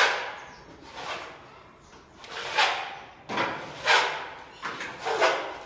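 Construction work in a bare concrete room: a series of scraping, swishing strokes, irregular, about one a second, each fading out quickly.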